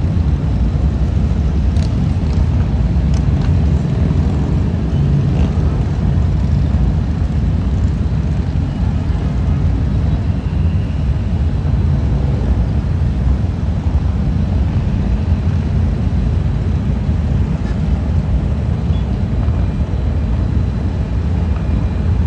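A group of Harley-Davidson motorcycles riding by, heard as a steady, low, continuous rumble mixed with city traffic.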